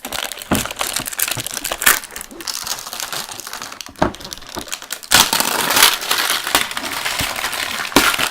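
Packaging being ripped off a toy box by hand: crinkling and tearing with scattered sharp snaps, denser and louder from about five seconds in.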